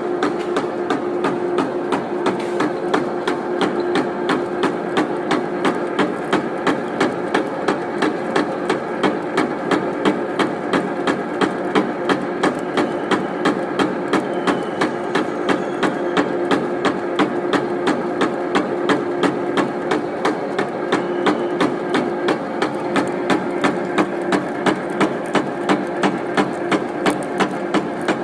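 Metal lathe running while a large 25 mm drill bores through the workpiece: a steady machine hum with a sharp, regular knock about three times a second.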